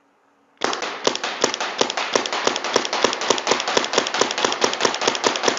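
Planet Eclipse EMF100 paintball marker firing round balls through a 14-inch barrel with a rifled insert, a quick string of sharp shots at about four a second, some twenty rounds, starting about half a second in.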